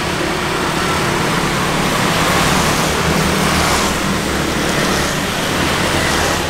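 Street traffic with a motor vehicle's engine running close by, steady and loudest through the middle.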